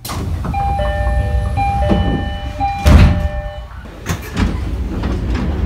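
Sliding doors of a Japanese commuter train at a station stop, heard over the car's low rumble. An electronic door chime sounds in steady tones for about three seconds, and a loud thud comes about three seconds in.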